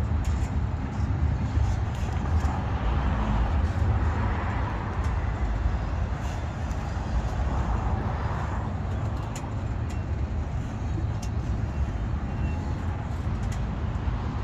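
Norfolk Southern double-stack intermodal freight train rolling past: a steady, heavy rumble of steel wheels on the rails, with scattered light clicks and ticks over it.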